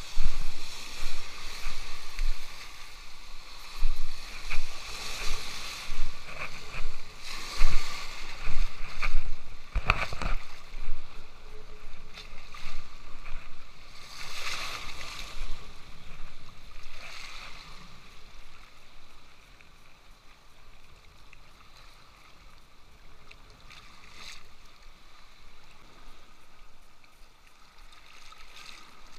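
Sea waves washing and splashing against a rocky shoreline, surging every second or two, then settling to a quieter, even wash after about eighteen seconds.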